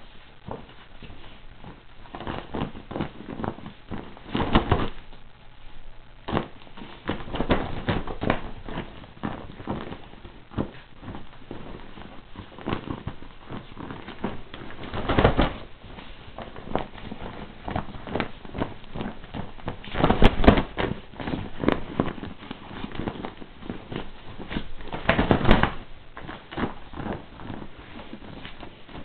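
A miniature pinscher bites and shoves a clear plastic ball around on a bed, making irregular crinkling and crackling of plastic mixed with rustling bedding. There are several louder bursts, the loudest about two-thirds of the way in.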